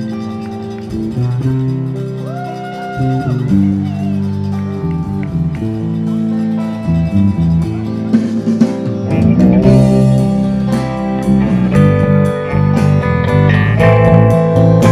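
Guitar-led music, growing louder and fuller with percussion from about eight seconds in.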